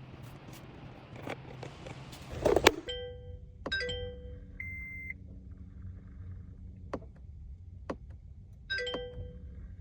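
Car instrument cluster sounding its warning chimes: short ringing tones, three in all, with a single short steady beep between them and a few sharp clicks, after a loud click about two and a half seconds in.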